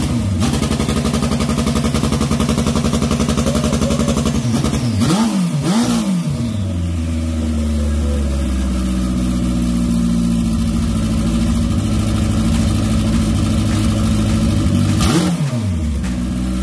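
Honda CB750 motorcycle engine idling and being revved with quick blips of the throttle: one at the start, two about five seconds in and one more near the end, dropping back to a steady idle between.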